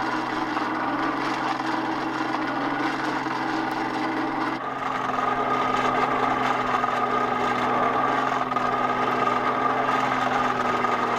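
Antique hand-cranked forge blower whirring steadily as it forces air into the coal fire. About halfway through, its pitch shifts and a higher whine comes in.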